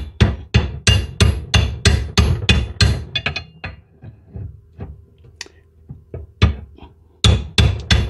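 Hammer blows on a crowbar hooked into a garbage disposal's mounting ring, knocking the ring round to free the disposal from the sink flange. The sharp, even strikes come about three a second, thin out to a few light taps midway, and resume steadily near the end.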